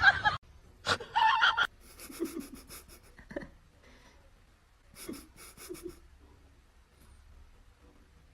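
Short runs of quick, breathy panting, in two bursts a few seconds apart, fading to near quiet near the end.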